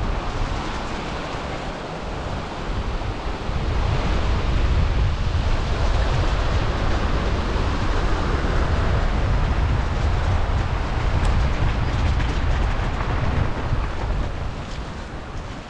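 Wind rushing over the microphone of a moving motorcycle, a steady rumbling rush with no clear engine note. It grows louder about four seconds in and eases off near the end.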